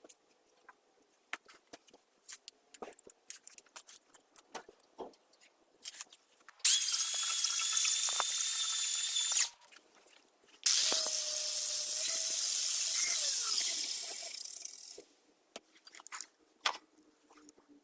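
A high-pitched power tool running in two bursts of a few seconds each, the second one winding down at the end, after a run of light clicks and taps from handling tools.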